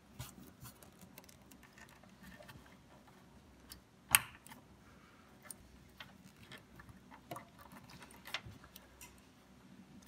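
Light clicks and rustling of SATA data cables being handled and their plastic connectors pushed into a motherboard's SATA ports, with one sharp click about four seconds in.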